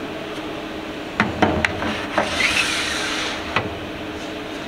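Battery-cell jig plate being handled and fitted into the machine's aluminium jig holder: a few sharp knocks and clicks, a scraping rub in the middle, and one more knock near the end, over a faint steady machine hum.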